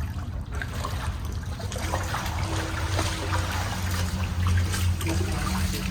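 Water trickling and running through a tunnel, with a low steady hum underneath and scattered small splashes and ticks, as of footsteps in shallow water.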